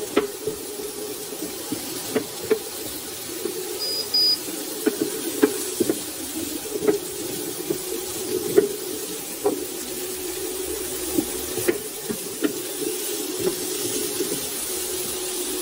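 Potato, carrot and onion chunks frying in olive oil in a nonstick pan: a steady sizzle, with irregular knocks and scrapes of a wooden spatula as the vegetables are stirred. A steady low hum runs underneath, and a short high electronic beep sounds about four seconds in.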